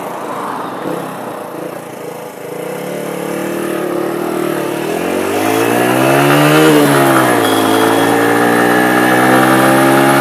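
Pulse Adrenaline 125 motorcycle's single-cylinder four-stroke engine accelerating from a junction. Its pitch rises from about three seconds in, drops sharply at a gear change about seven seconds in, then climbs steadily again.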